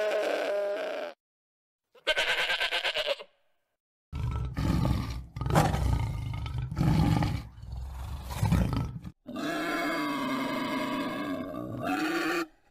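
Animal calls one after another. A sheep bleats twice, the second bleat wavering. Then a tiger roars several times, deep and loud, for about five seconds. A long drawn-out pig call comes near the end.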